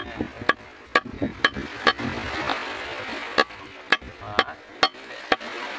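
A knife chopping raw fish into small pieces on a wooden block cut from a log slice: sharp chops about twice a second, with a pause of about a second and a half midway.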